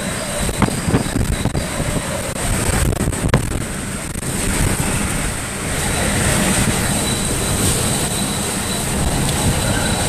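Hurricane-force wind, sustained around 120 mph, in a loud, continuous rush with a rumbling low end and level that surges and eases, with a few sharp ticks in the first few seconds from rain or debris striking.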